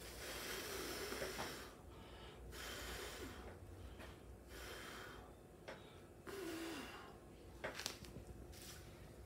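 A person blowing hard through a drinking straw onto wet acrylic paint in four long puffs, drawing breath in between. A few faint clicks follow about eight seconds in.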